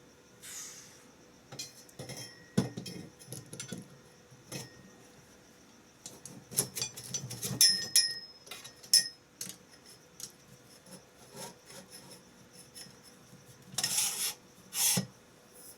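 Metal drill-press parts being handled and worked loose: irregular clicks, clinks and knocks, busiest around the middle, then two short rasping scrapes near the end.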